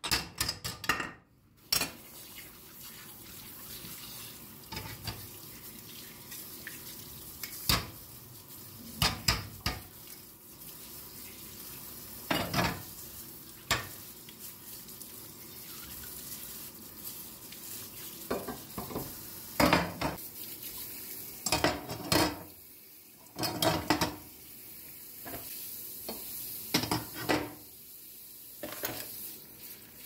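Gas-stove grates and burner parts being washed in a kitchen sink: repeated metal knocks and clatters against the sink under a steady hiss of running tap water.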